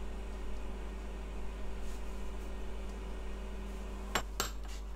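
Steady electrical hum and hiss of an induction hob heating a saucepan of melting butter. Two light clicks a little after four seconds in.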